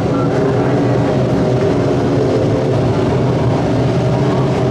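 Engines of several winged lightning sprint cars running together as the pack passes on a dirt oval. Many engine tones overlap into a loud, steady sound that holds level throughout.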